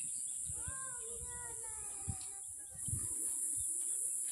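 Steady high-pitched buzz of insects, growing louder a little before the end, with one long drawn-out call about a second in that slowly falls in pitch over about two seconds, and a few low thumps.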